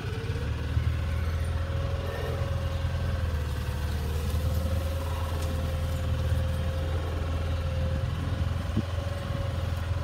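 Boat motor running steadily: a continuous low drone with a slightly wavering tone above it.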